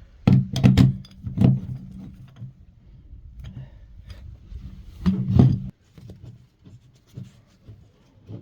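Several sharp knocks and clatters, clustered near the start and again about five seconds in, over a low steady hum that cuts off suddenly about two-thirds of the way through.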